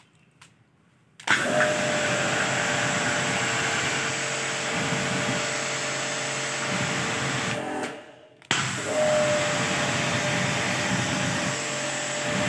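Biosafe Powermax high-pressure washer's electric motor and pump running as the gun sprays a water jet, starting about a second in. It is on a pressure test after a power-cable replacement. The machine stops for under a second near eight seconds, then starts again.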